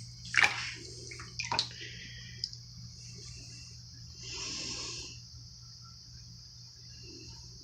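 Bathwater splashing and sloshing as a kitten is bathed, with two sharp splashes about half a second and a second and a half in and a softer slosh around the middle, over a steady hiss.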